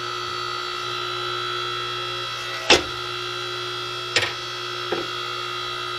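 DR 5-ton electric log splitter running: its electric motor and hydraulic pump give a steady whining hum. Three sharp wooden knocks cut across it as split pieces are handled, the loudest about two and a half seconds in.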